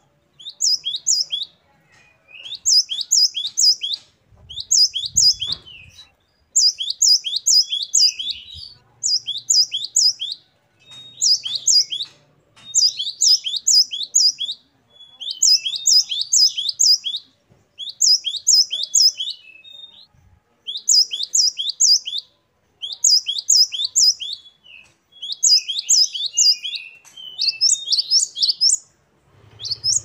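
Great tit singing: a rapid, repeated song of high, downward-sweeping whistled notes, three or four to a phrase, delivered in bursts of about a second and a half with short pauses between.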